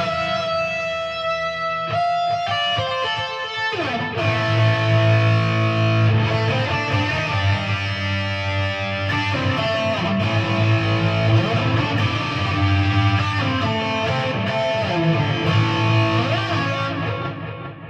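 PRS SE Hollowbody II electric guitar played through a Peavey Vypyr amplifier on its high-gain 6505 setting, playing a riff. The first few seconds are ringing single notes, then from about four seconds in it shifts to heavier low-string riffing, fading out near the end.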